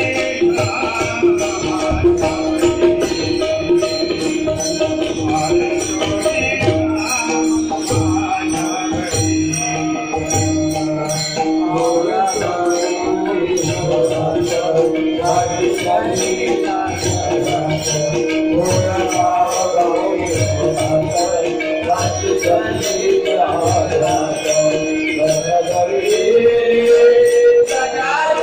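Marathi devotional bhajan music for an abhang, mostly instrumental: sustained held tones over a steady rhythmic beat of jingling metallic percussion and drum.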